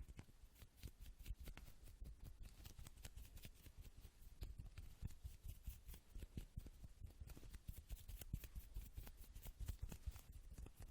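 Fast ASMR tapping: quiet, rapid fingertip taps and clicks close to a sensitive microphone, many per second in an irregular, dense stream.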